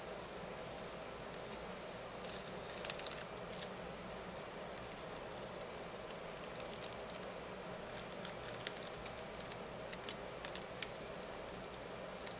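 General-purpose masking tape being peeled off watercolor paper and a cutting mat: a quiet, irregular crackling and crinkling, thickest about two to four seconds in.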